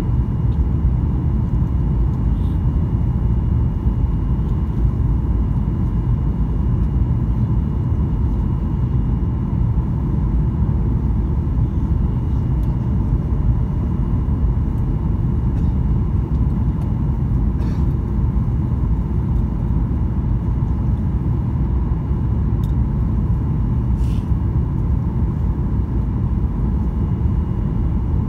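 Steady cabin noise inside a Boeing 737-800 on approach with flaps extended: a low rumble from the CFM56 engines and the airflow, with a faint steady whine above it.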